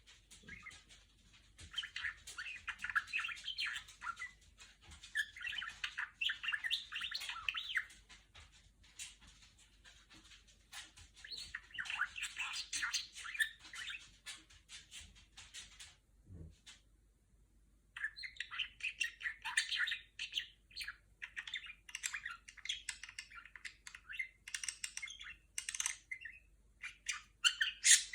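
Female budgerigar chattering and warbling in quick runs of chirps and squawks, falling quiet for a couple of seconds past the middle, with one brief low thump, then chattering again more sharply.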